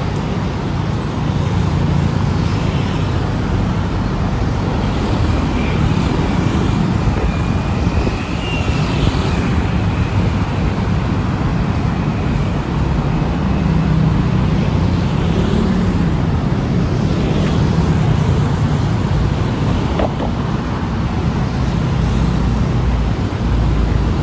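Steady road traffic, with the hum of passing vehicle engines and a faint whine that rises in pitch a few seconds in.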